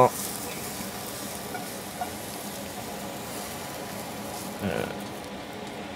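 Sliced mushrooms sizzling in a hot frying pan as a spatula scrapes them out into a bowl, with a steady hiss and a light click about two seconds in and a short scrape near the end.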